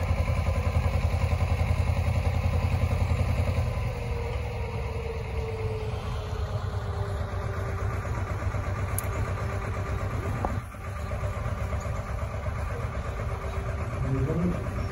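Narrowboat diesel engine running steadily under the camera as the boat manoeuvres, with a fast, even low beat.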